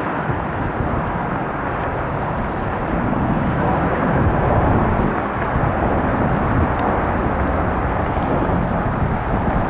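Steady jet noise from a Mitsubishi CRJ-900 regional jet's twin turbofans as it departs, swelling a little midway.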